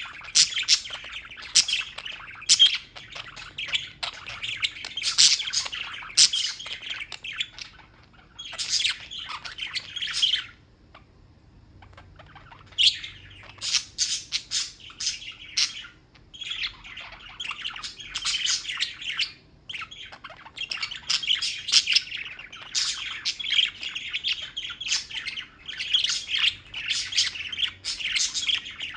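Pet birds chirping almost continuously in quick, high runs of calls, with a short lull a little over a third of the way through.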